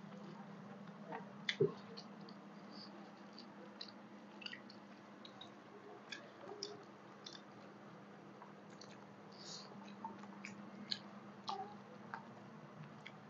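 Fingers squishing and kneading rice mixed with mashed bharta on a banana leaf, with soft chewing and many small scattered clicks over a steady low hum. There is a louder knock about a second and a half in.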